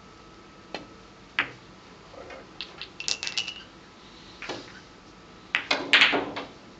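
Sharp clicks of billiard balls and cue on a five-pin billiards table: single knocks, then a short cluster of clicks, then a louder clatter of several quick knocks near the end.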